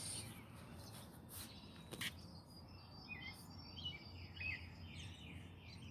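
Small birds chirping faintly in short calls over steady outdoor background noise, with two brief clicks around one and a half to two seconds in.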